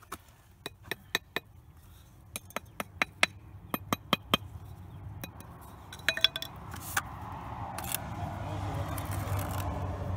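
Bricklayer's trowel and brick hammer clinking and tapping against red bricks as they are set in fresh mortar: a run of sharp separate clicks, thinning out after about seven seconds. A low rumble builds in the second half.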